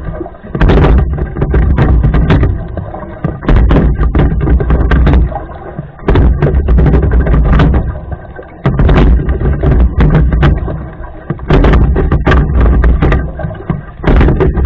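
Rowing strokes in a regular rhythm, about one every two and a half to three seconds: each stroke brings a loud low rumbling surge with sharp knocks and clicks.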